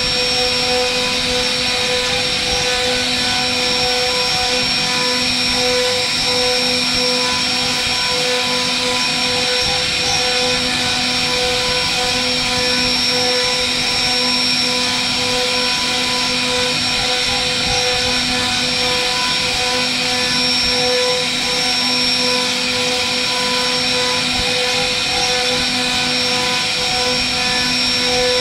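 CNC router spindle running with a steady high whine while its small carving bit mills a relief into a wooden panel. A lower hum cuts in and out every second or two.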